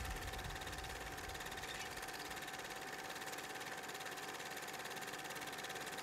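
Film projector running: a rapid, even mechanical clatter with a steady tone beneath it, fairly quiet, with a low rumble fading out in the first second or two.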